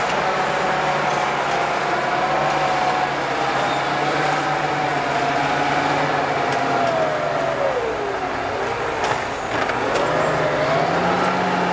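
John Deere 8400 tractor engine working under load while it pushes chopped grass across a silage clamp. The engine note drops about eight seconds in and climbs back up about two seconds later.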